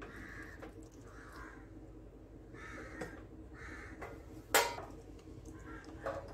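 Crows cawing repeatedly, a call about every second, with one much louder call a little past the middle.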